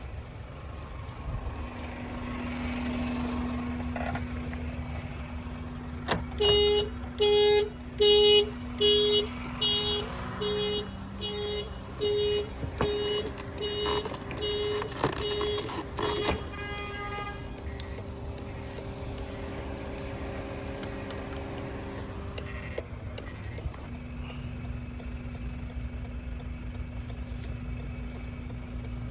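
Car anti-theft alarm sounding the horn in a rapid string of loud honks, about one and a half a second, starting about six seconds in and stopping after about ten seconds; the security system has been set off on the locked, keyless 2018 Toyota Avalon. A steady low hum runs underneath.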